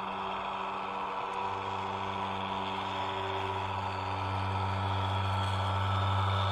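A road roller's engine running steadily, a hum with several fixed pitches. A deeper rumble joins about a second and a half in and grows slightly louder, then the sound cuts off abruptly just after the end.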